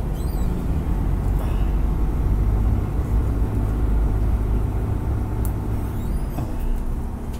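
Steady low rumble of a vehicle engine or road traffic, with faint crinkling and ticks as a banana-leaf wrapper is peeled open by hand.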